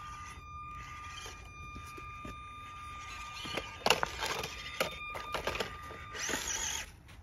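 Radio-controlled scale rock crawler on rocks: its electric drive gives a steady high whine, and plastic chassis and tyres clatter and knock on the stones about four seconds in as it tips over. A short, harsher burst of noise comes near the end.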